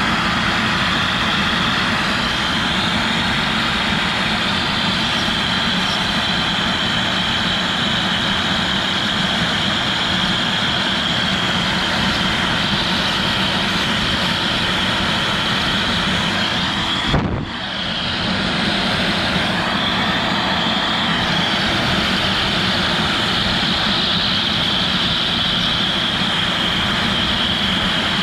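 CNC router spindle running at speed and cutting PVC: a steady high whine over a noisy roar. About 17 seconds in there is a single click and the sound briefly drops before it builds back up.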